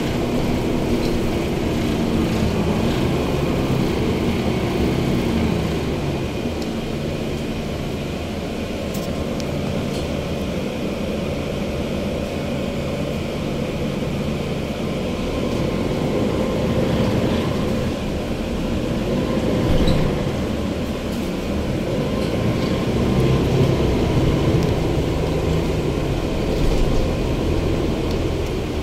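Interior of an articulated Mercedes-Benz Conecto city bus on the move: the OM470 diesel engine and ZF automatic gearbox running under road and cabin noise, the engine note rising and falling with changes in speed.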